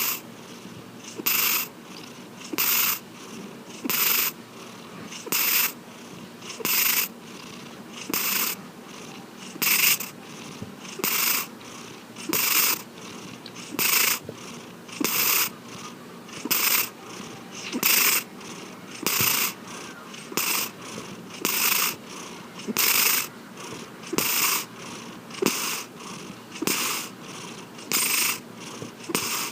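Domestic cat snoring in its sleep: a hissing breath sound repeating steadily, about once every second and a half.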